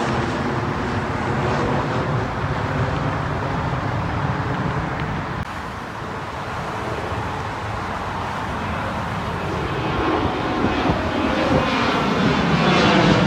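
Jet airliner engines passing overhead after takeoff: a steady roar that drops off about five seconds in, then another jet's roar builds up toward the end as it climbs overhead.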